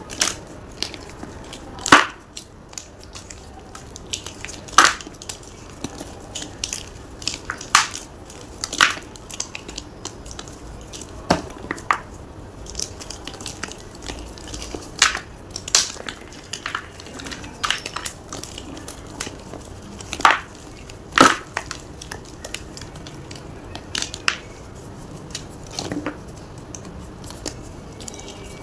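Block of gym chalk being crunched close up: irregular sharp, dry crunches every second or two, with quieter crumbling cracks between them.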